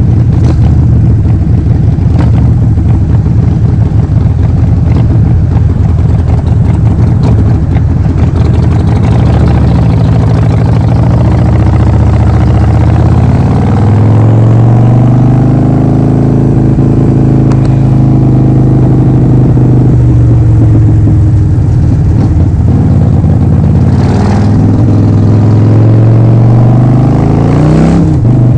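Harley-Davidson Forty-Eight's 1200 cc air-cooled V-twin running through a Vance & Hines full exhaust system. It gives an uneven, loping rumble at low engine speed for the first half, then settles into a steady note that rises and falls gently with engine speed, with a brief rise and drop near the end.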